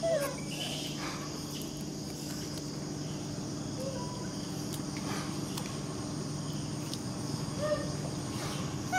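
Steady insect chorus, a constant high buzzing drone, over a low steady hum, with a few short chirping calls about four seconds in and near the end.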